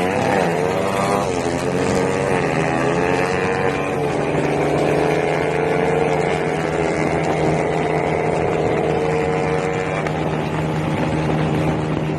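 Bored-up Kawasaki KLX drag bike's single-cylinder four-stroke engine revving. The pitch rises and falls several times in the first few seconds, then holds at steady revs and eases off about ten seconds in.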